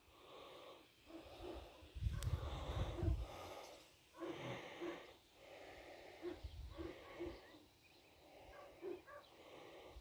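Faint rustling and scuffling of dry grass and soil as two cats wrestle, in short irregular bursts, with a few low bumps on the microphone.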